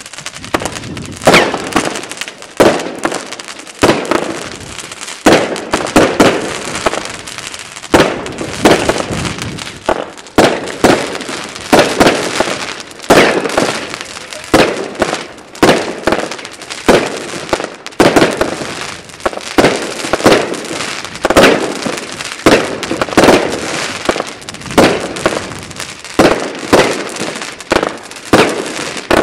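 Royal Fireworks 'Gate of Heaven 3' consumer firework cake firing shot after shot in a steady rhythm, a loud bang about every second and a third, with a short echoing tail after each.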